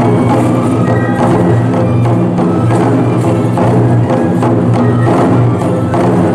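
Kesen tiger-dance (toramai) music, played live: taiko drums struck in a steady beat with sharp clacks, under sustained bamboo flutes playing the melody.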